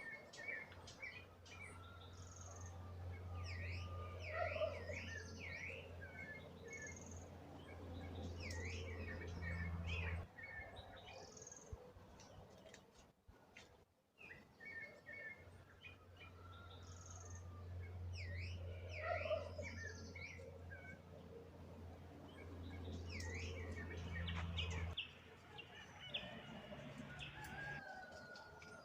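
Several small birds chirping and calling in quick, repeated short notes, over a low steady hum that cuts off suddenly twice.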